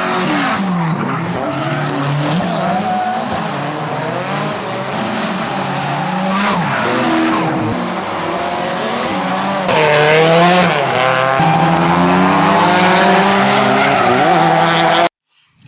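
A drift car's engine revving hard, its pitch rising and falling again and again, with tires squealing and skidding on the pavement; it cuts off suddenly near the end.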